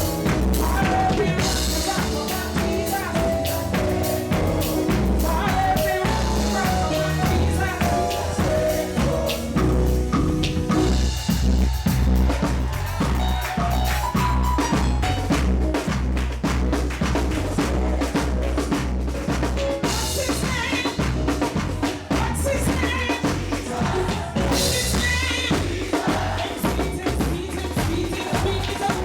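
Live gospel band music played by a full drum kit with snare, bass drum and rimshots under a strong bass line and keyboard.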